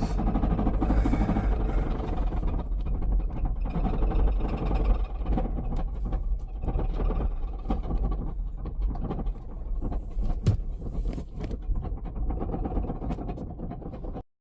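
Subaru Impreza's flat-four engine running with a loud knocking, the sign of a spun bearing. The sound cuts off abruptly near the end.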